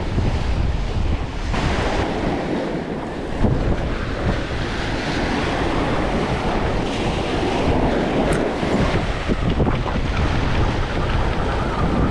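Sea surf breaking and washing over the boulders of a rock jetty, with wind buffeting the microphone in a steady low rumble.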